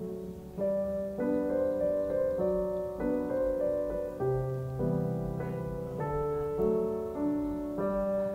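Background piano music, a gentle melody with a new note about every half second.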